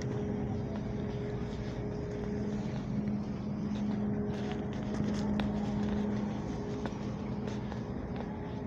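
Steady low machine hum of store equipment, holding a constant pitch, with scattered light clicks and rustles over it.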